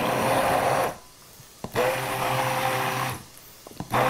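Handheld immersion blender pureeing whole plum tomatoes in a glass bowl, run in short bursts: about a second on, a pause of nearly a second, about a second and a half on, then starting again near the end.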